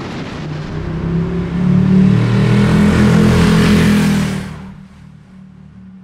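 Motorcycle engine revving and pulling away. It builds over the first couple of seconds, holds loud, then fades out near the end.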